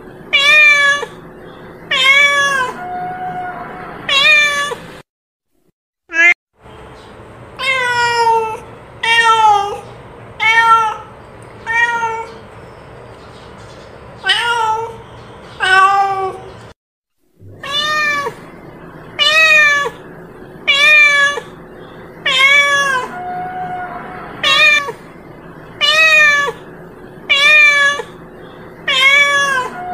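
A cat meowing over and over, about one meow a second, each call rising then falling in pitch. The calls stop twice for a moment of silence.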